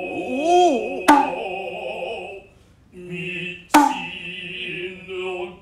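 Noh utai chant by two male voices with a kotsuzumi shoulder drum. The drum is struck sharply twice, about a second in and again near four seconds. A swooping vocal call comes just before the first stroke.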